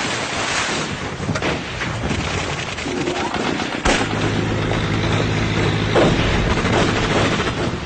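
Film battle sound effects of rifle and machine-gun fire: a dense run of shots with a sharp, loud report about four seconds in. From then on a steady low drone runs under the shots.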